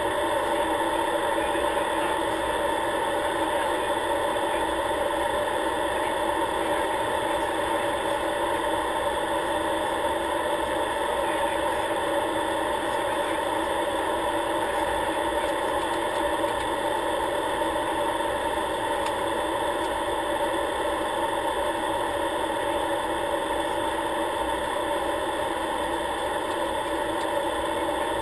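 Steady drone of an aircraft's engine and airflow, heard inside the cockpit in flight.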